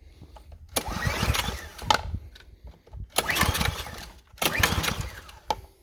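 Small gasoline engine of a Ryobi pressure washer being pull-started: three pulls of the recoil starter, each turning the engine over for about a second before it stops again.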